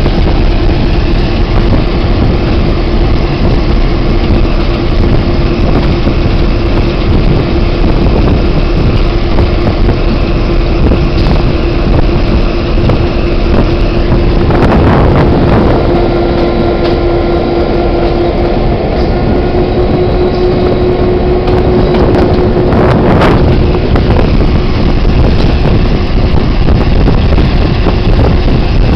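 Diesel locomotive running along the track, heard from its outside walkway: a steady engine drone with a constant hum, the rumble of the wheels on the rails, and wind on the microphone. Two brief louder swells come about halfway through and again near the end.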